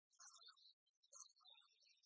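Near silence: only faint, scattered specks of sound, no clear source.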